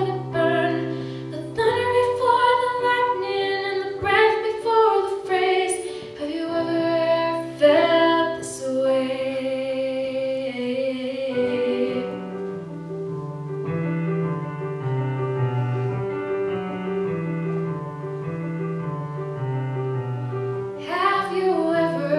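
A young woman singing live at a microphone over an instrumental accompaniment. About halfway through, the voice drops out and the accompaniment plays on alone in steady, stepped chords. The singing comes back in near the end.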